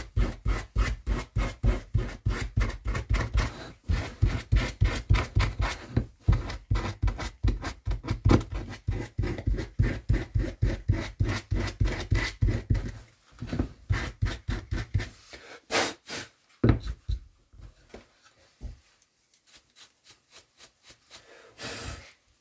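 Hand carving tool cutting and scraping into wood in quick, even strokes, about three or four a second, as a curve is rounded off. About halfway through the strokes thin out into scattered single cuts with pauses.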